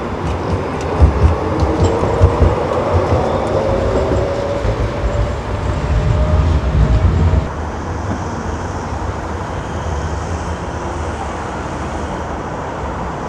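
Rail vehicle running past with a low rumble, knocking and a rising whine. About seven and a half seconds in, the sound cuts off abruptly to a steadier, quieter hum.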